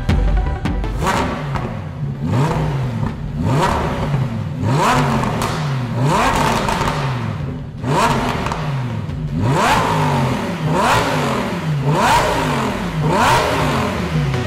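Lamborghini Huracán Performante's V10 free-revving through a Fi Exhaust system: about ten quick blips a little over a second apart, each pitch climbing sharply and then falling away.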